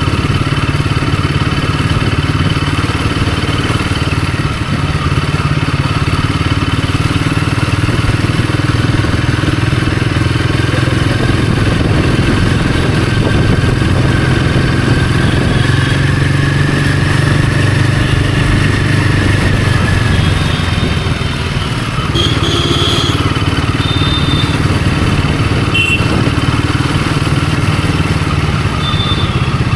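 Royal Enfield Himalayan 450's 452 cc single-cylinder engine running steadily on the move, with a short dip in loudness a little past the middle.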